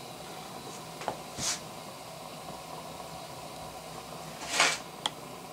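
Stuart Progress oscillating steam engine, just kicked over on live steam and turning slowly: two hissing exhaust puffs about three seconds apart, with a couple of light clicks. The slow beat fits the boiler pressure falling to zero right after start-up.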